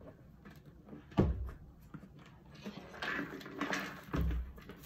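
Plastic knocks and clatter as a West Bend Stir Crazy popcorn popper is lifted and turned upside down, with popcorn rustling as it shifts into the clear dome. A sharp knock about a second in is the loudest sound, and another thump comes near the end.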